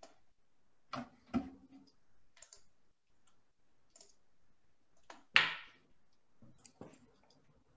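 Scattered clicks and small knocks picked up on video-call participants' microphones, the loudest a thump about five seconds in.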